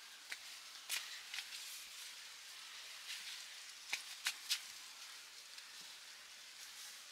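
Several sharp clicks or snaps over a steady high hiss, three of them close together about four seconds in.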